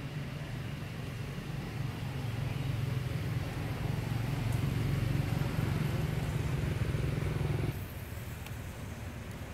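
Low, steady hum of a motor vehicle engine running nearby, growing louder over several seconds and cutting off abruptly near the end.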